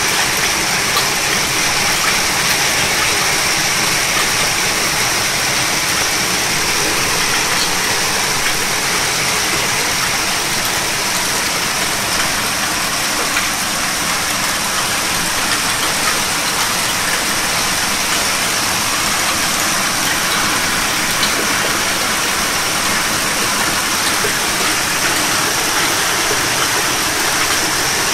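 Torrential downpour: heavy rain falling steadily as an even, unbroken hiss.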